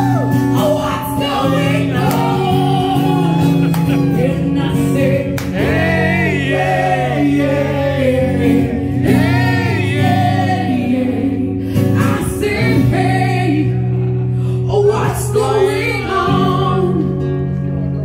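Live song: a woman singing into a microphone over acoustic guitar accompaniment.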